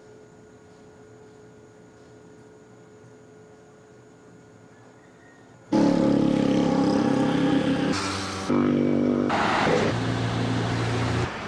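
A faint steady hum, then music starts suddenly a little past halfway, with held chords that change every second or so.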